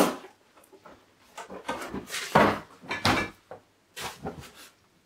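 Cardboard box and packing being handled: a run of short rustles, scrapes and knocks as pieces are lifted out and set down, the sharpest knock right at the start.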